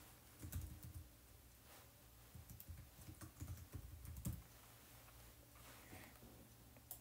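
Faint typing on a keyboard: a quick run of keystrokes over the first four seconds or so as a two-word name is typed in.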